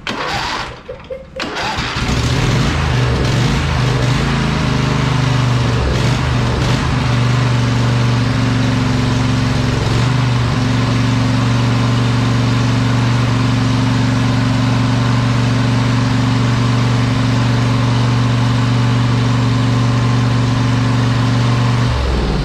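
A newly swapped lawn tractor engine cranks briefly on its starter, catches and runs unevenly for several seconds, then settles into a steady run. It cuts off near the end.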